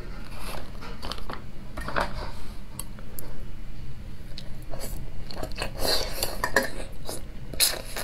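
Eating sounds of marinated Sichuan-pepper chicken feet: soft clicks of chopsticks in the saucy bowl, then wet smacks and crisp clicks of biting and chewing a chicken foot, busier in the second half.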